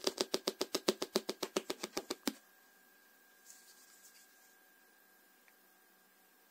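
A rapid, even train of sharp clicks, about seven a second, that stops abruptly after a little over two seconds, followed by faint handling of a plastic speaker casing.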